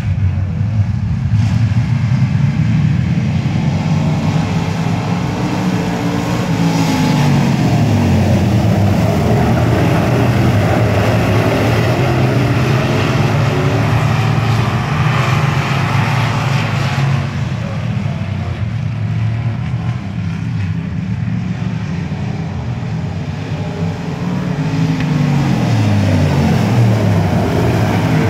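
A pack of dirt-track sportsman race cars running hard around the oval, their carbureted V8 engines blending into one continuous loud engine sound. The engine note drops in pitch twice, about six seconds and twenty-five seconds in, as cars come by and lift into the turn.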